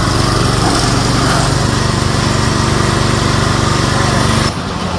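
Sraja Ustad power weeder's single-cylinder petrol engine running steadily with the throttle raised. About four and a half seconds in, the sound cuts abruptly to a quieter, lower engine note.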